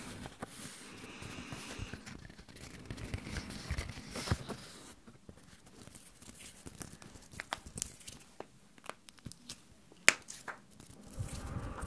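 ASMR hand and paper sounds close to the microphone: a sheet of paper rustling for the first few seconds, then bare hands rubbing together with scattered sharp clicks, the loudest about ten seconds in.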